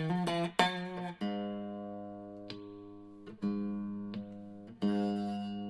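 Electric Les Paul-type guitar through an amp, clean tone: one chord strummed about seven times, each stroke left to ring and fade, the loudest in the first second or so. The chord is played to check the newly wired pickup phase switching with both pickups on.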